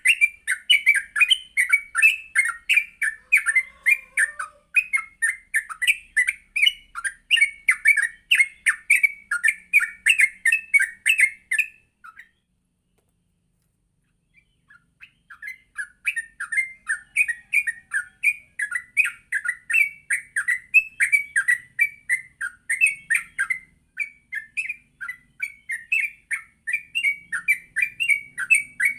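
Yellow-vented bulbul singing in fast, continuous runs of chirping notes. It breaks off for about three seconds midway, then takes up the song again.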